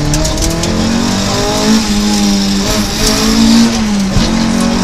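Opel Kadett GTE Group 2 rally car's four-cylinder engine heard from inside the cabin, revving hard with its pitch rising under acceleration for the first couple of seconds, then holding high, with a quick dip near the end.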